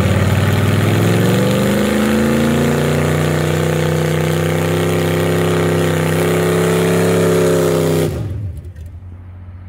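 Big-block V8 of a vintage pickup revved hard during a burnout, its rear tire spinning in place. The pitch climbs over the first two seconds and holds at high revs, then the engine is let off suddenly about eight seconds in.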